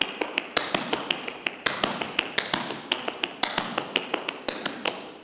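Tap shoes striking the floor in quick clusters of sharp metal taps: reverse cramp rolls, heels first then balls of the feet, in a double, double, single pattern.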